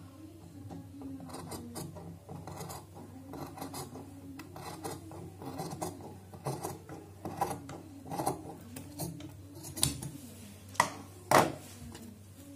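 Large tailoring scissors cutting through net and blouse fabric: a run of repeated blade snips, with two louder clacks near the end.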